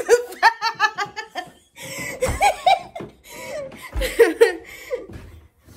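Laughter in several bursts of quick, rhythmic ha-ha pulses, with a dull low thump about four seconds in.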